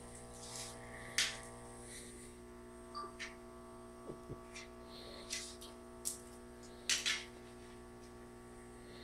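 Steady electrical mains hum made of many even tones, from the aquarium's running equipment, with a handful of short sharp clicks and taps scattered through it, the loudest a little over a second in and twice close together about seven seconds in.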